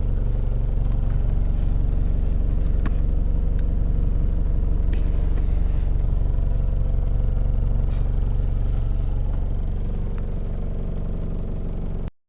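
Toyota HiAce 1KZ-TE 3.0-litre four-cylinder turbodiesel idling steadily, with a few faint clicks. The sound cuts off abruptly near the end.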